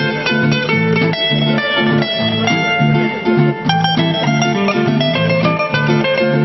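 Two acoustic guitars playing a lively picked tune together: a steady, repeating bass line under quick runs of plucked notes.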